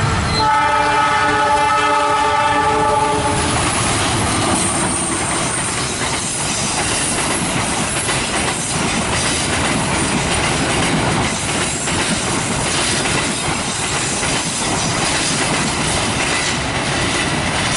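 Express passenger train's horn sounding one chord for about three seconds, then the train passing close by: a loud, steady rush of wheels on rail with repeated clickety-clack over the rail joints.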